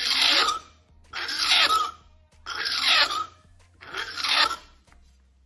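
Hand file rasping across the edge of an acrylic sheet in four push strokes, about one every second and a half, each turned over the corner to round it off.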